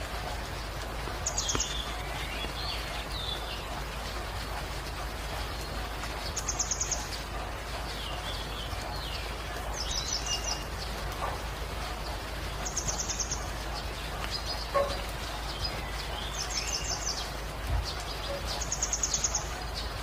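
Steady rain hiss with a bird calling over it: a short, high, rapid trill repeated about every three seconds, six times, each followed by a few softer, lower notes.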